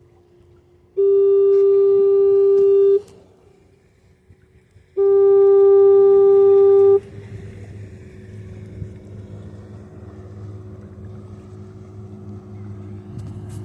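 Grand Haven fog horn sounding two blasts of about two seconds each, two seconds apart, each one steady and at a single pitch. After the second blast a faint low steady hum sets in.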